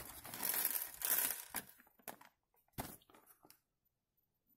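Crinkly plastic rustling as a stash of small screws salvaged from a keyboard is handled and picked through, followed by a few light clicks a little before the end.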